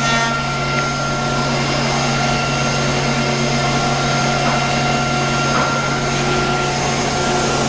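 ATC CNC router running as it machines wood: a loud, steady machine hum with several constant whining tones above it.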